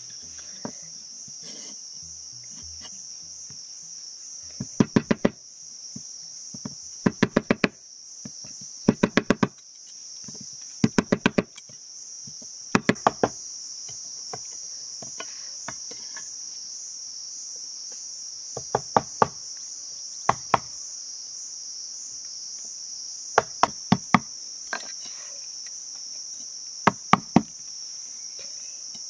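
Machete blade chopping into a green bamboo tube, sharp knocks in quick bursts of three to five strokes, repeated every few seconds. A steady high-pitched insect drone runs underneath throughout.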